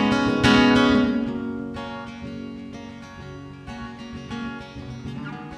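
Acoustic guitar playing alone between sung verses: strummed chords, loudest in the first second, then ringing and slowly fading.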